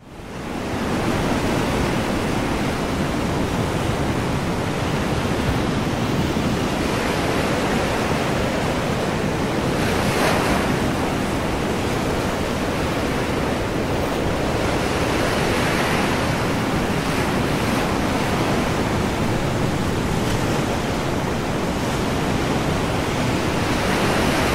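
Ocean surf washing onto a sandy beach: a steady rush of waves with louder breakers now and then, over a low rumble of wind on the microphone.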